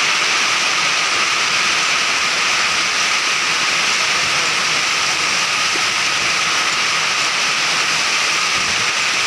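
Heavy rain pelting down on an asphalt road: a loud, steady hiss of drops striking the pavement.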